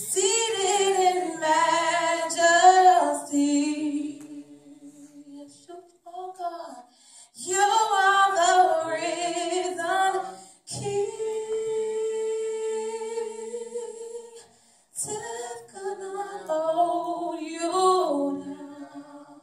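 A woman singing solo and unaccompanied, in phrases with short breaks between them and one long held note in the middle.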